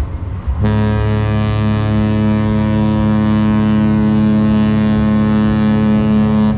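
A cruise ship's horn sounding one long, steady, deep blast. It starts about half a second in and is held for about six seconds.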